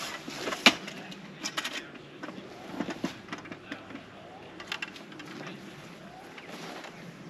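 Awning's curved centre rafter being unclipped and pulled out from under the canvas: a sharp clack about a second in, then several lighter clicks and knocks as the pole is handled.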